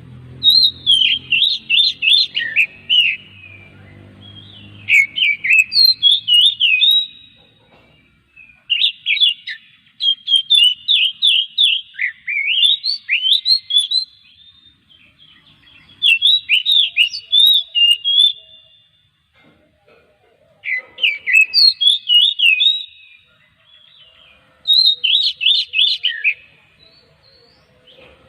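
Oriental magpie-robin (kacer) singing: loud phrases of quick, sweeping whistled notes, a burst every few seconds with short pauses between.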